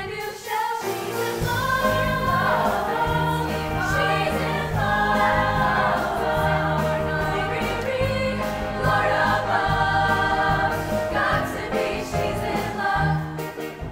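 A women's show choir sings in harmony over instrumental accompaniment with a bass line.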